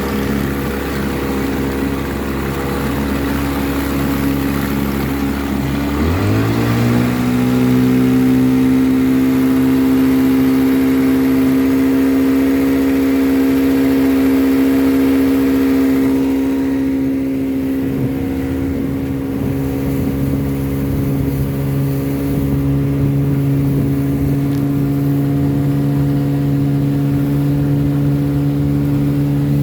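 1957 West Bend-built Elgin 7.5 hp two-stroke outboard motor running after a head gasket repair. About six seconds in, its pitch rises quickly as it is throttled up, then it holds a steady note at cruising speed. A hiss over the engine eases about halfway through.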